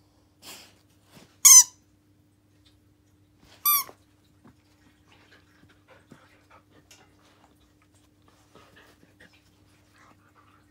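Squeaker inside a plush toy squeaking twice, about two seconds apart, as a Siberian husky bites down on it, followed by faint chewing and mouthing sounds.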